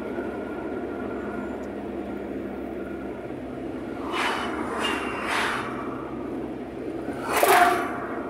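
Steady road and tyre noise inside a moving car's cabin. Three quick whooshes of oncoming vehicles passing come about four to five seconds in, and a louder one comes about seven and a half seconds in.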